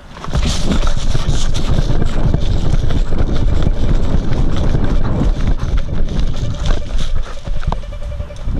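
Wind buffeting the microphone of a player-worn camera while the player runs, with rapid irregular footfalls and gear rattle mixed in. The noise starts abruptly and stays loud throughout.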